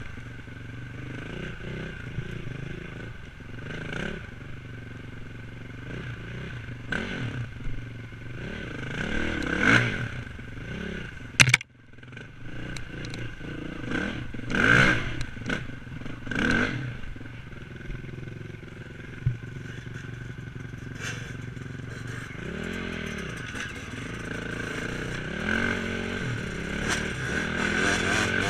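Enduro motorcycle engine revving up and down again and again through the gears, with clattering and knocks. A sharp crack comes about eleven seconds in, followed by a brief drop in sound.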